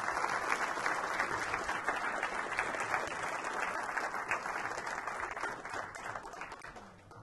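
Audience applauding: dense, even clapping that dies away near the end.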